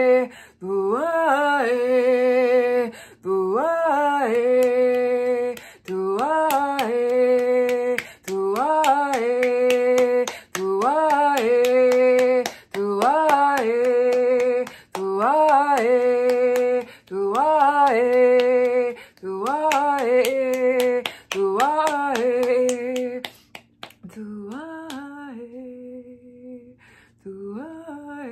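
A woman singing wordless light-language tones: a phrase repeated about every two seconds, each sliding up into a held note, about ten times, then softer from about 23 seconds in. Sharp clicks run through the singing.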